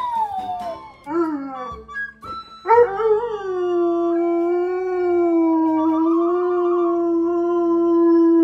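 Dogs howling: first short howls that glide up and down in pitch, then from about three seconds in a single long, steady howl held on one pitch.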